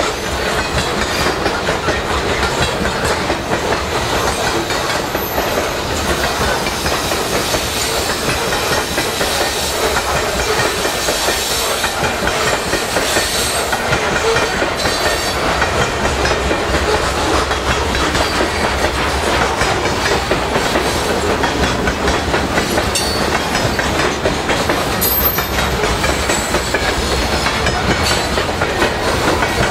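Freight train's covered hopper cars rolling steadily past at close range, a loud continuous rumble with the steel wheels clicking and clattering over the rails.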